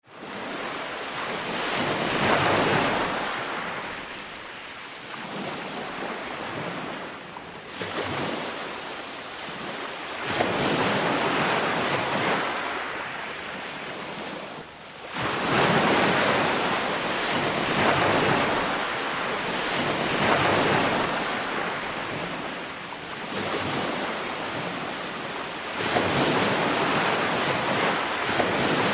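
Ocean waves breaking and washing on the shore, the surf swelling and falling back every few seconds, with wind buffeting the microphone.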